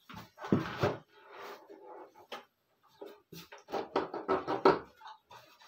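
The plastic rear cover of an old CRT colour television knocking and clattering as it is worked loose and pulled off by hand, with a couple of knocks about half a second in and a louder run of knocks near the end.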